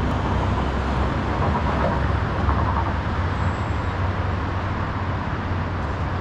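Steady traffic noise from a busy multi-lane highway far below: a continuous rush of passing cars with a low rumble.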